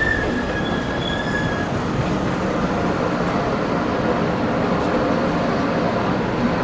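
Taiwan Railways EMU500-series electric multiple unit rolling past the platform, its wheels and running gear giving a steady rumble. A high, steady squeal sounds over it at first and fades out about a second and a half in.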